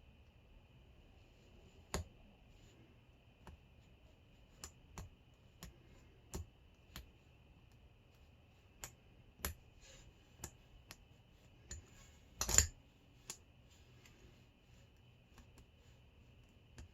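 Small metal clicks and ticks of a hook pick and tension wrench working the pins of a small Hurd padlock, coming irregularly about a dozen times, with one louder short clatter about twelve and a half seconds in.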